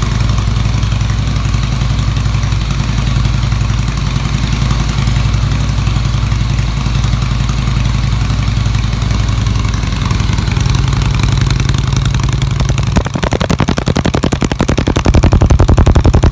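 Harley-Davidson Twin Cam 88 V-twin with a ProCharger supercharger, running at idle on one of its first starts. About 13 seconds in the sound changes to a string of evenly spaced pulses that grow louder near the end.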